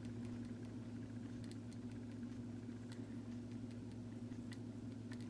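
Sears variable plug-in timer's small synchronous motor humming steadily, with faint, irregular clicks from its stripped main drive gear slipping. The clicking is the sign that the gear is going bad.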